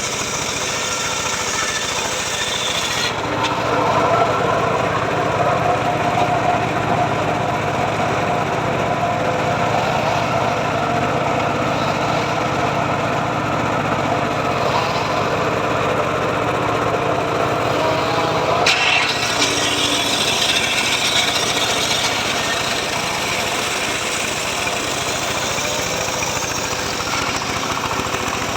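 Home-built circular saw rig running steadily while cutting teak wood. Its sound shifts abruptly about 3 seconds in and again about 19 seconds in.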